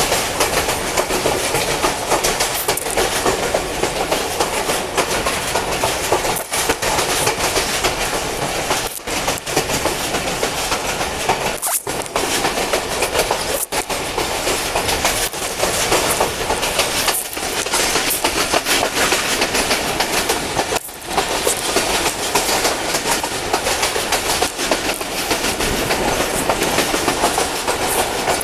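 Diesel-hauled passenger train running at speed, heard from a carriage window: a steady loud rush of wheel and track noise, dipping briefly a few times.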